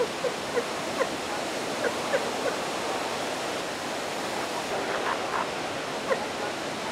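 Steady wash of ocean surf, with about ten short, squeaky animal calls scattered through it, several in quick succession near the start and a few more later.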